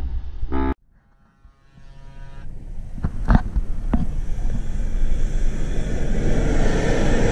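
Pickup truck engine and sand spray that cut off abruptly under a second in. Then a Nissan Titan pickup's engine and tyres on sand grow steadily louder as it drives up the dune toward the camera, with a couple of sharp knocks about three and four seconds in.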